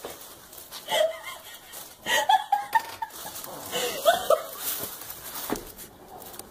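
A person laughing softly in short, breathy bursts, a few times over several seconds.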